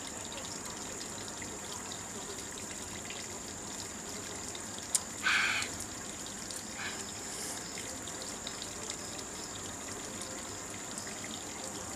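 Steady outdoor ambience: an even rushing noise, in the manner of running water, under a constant high-pitched whine. About five seconds in, a sharp click is followed by a brief louder noisy burst, with a smaller one a second or so later.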